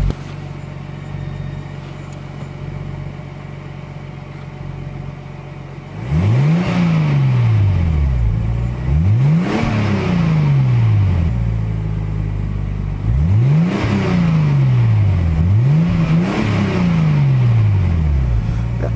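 Nissan Skyline R34 GT-t's turbocharged RB25DET straight-six idling steadily, then revved four times from about six seconds in, each rev climbing quickly and sinking back more slowly to idle. It runs smoothly, with no major odd noises from the engine.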